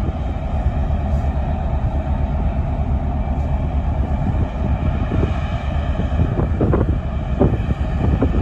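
Low, steady rumble of the car ferry Ulysses's engines as it pulls away from its berth. Wind buffets the microphone in short gusts toward the end.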